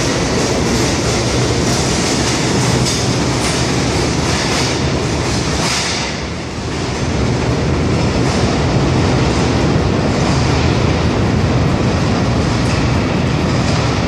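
R32 subway train pulling out of the station: the cars roll past on the rails with a steady loud rumble of wheels and motors, which dips briefly about six seconds in and carries on as the train heads into the tunnel.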